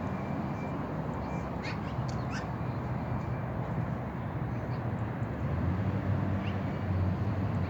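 Black-billed magpies calling: a few short harsh calls close together about two seconds in, then fainter ones, over a steady low background hum.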